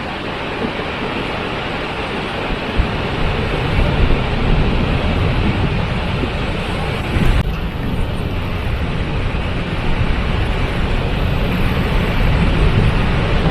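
Waterfall: a steady, dense rush of falling water, whose tone shifts slightly about seven seconds in.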